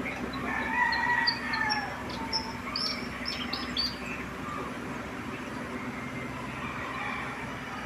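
Birds chirping: quick high notes in the first four seconds, with a few longer gliding calls lower down, over a steady low mechanical hum.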